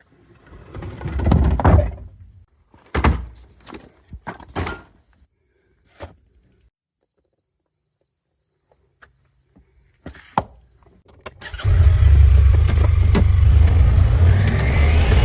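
A few clunks and knocks, then about three-quarters of the way in a motor vehicle starts up and runs steadily with a loud, low engine sound.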